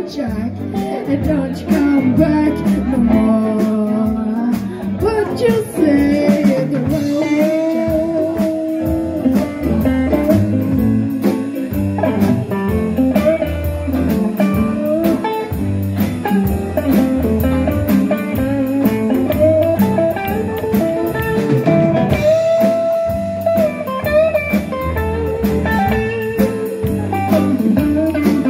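Blues band music: guitar with bass and drums, and singing.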